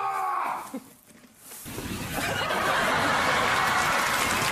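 A man's shouted voice, a short hush, then a group of people laughing loudly from just under two seconds in.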